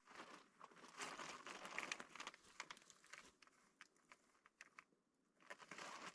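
Faint crackling and rustling in two short clusters, about a second in and near the end, otherwise near silence.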